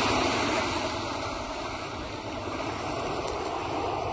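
Small ocean waves washing up over wet sand and drawing back: a steady rush of surf, loudest at the start and easing off about halfway through.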